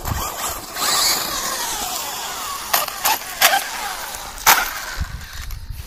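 Brushless electric motor of a radio-controlled buggy running, its whine falling in pitch about a second in, over tyre and chassis noise on snow and grass. Several sharp clicks or knocks follow in the second half.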